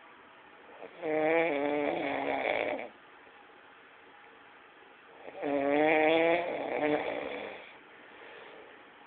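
A man snoring: two long snores of about two seconds each, some four seconds apart, with a buzzing, wavering pitch and quiet breathing between them.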